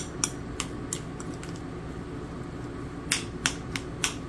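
A metal spoon clinking and scraping against a bowl as mashed potatoes with cheese are stirred: a few light clicks near the start, then a quicker run of clicks about three seconds in. Underneath is the steady hum of an air conditioner running.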